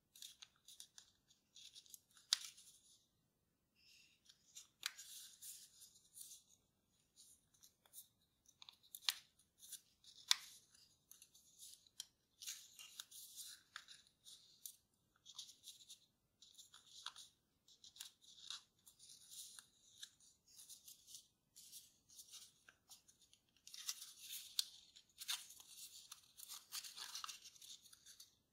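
Kraft origami paper being folded and creased by hand: irregular rustling and crinkling with a few sharp crackles as folds are pressed, busiest near the end.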